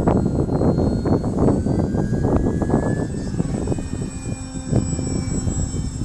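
Wind buffeting the microphone in heavy gusts, with the thin whine of a Visionaire 3D RC aerobatic plane's electric motor and propeller above it, its pitch shifting as the throttle and distance change.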